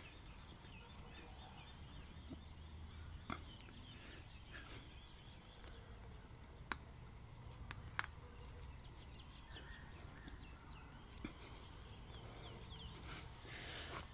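Faint outdoor background with small birds chirping on and off. Three sharp clicks come through it, about a quarter, a half and three fifths of the way in.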